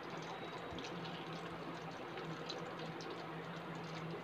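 Cornflour-coated boiled noodles deep-frying in hot oil: a steady sizzle with many small crackles.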